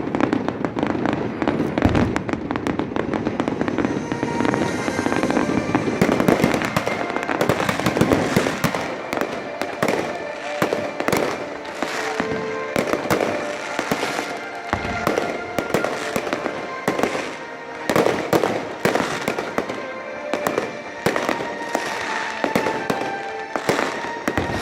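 Fireworks display: aerial shells going off in a dense, continuous run of bangs and crackles, the sharp reports getting thicker about six seconds in.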